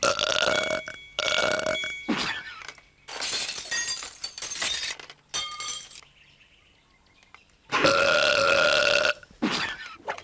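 Exaggerated cartoon burps from animated characters, several in a row, the longest and loudest near the end. About three seconds in there is a harsh rushing noise lasting about two seconds.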